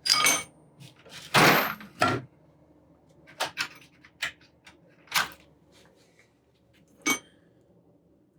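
Small metal hand tools and steering-box parts clinking and knocking as they are handled and set down on a workbench: about seven sharp clicks, some with a brief metallic ring, and a short scrape about a second and a half in.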